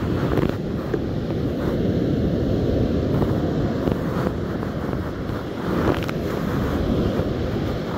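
Strong wind buffeting the microphone over the rush of breaking surf, with a few light knocks from handling.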